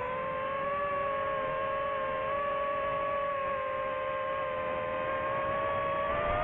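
DJI FPV drone's motors and propellers whining steadily in fast low flight, the pitch rising slightly near the end as the throttle comes up.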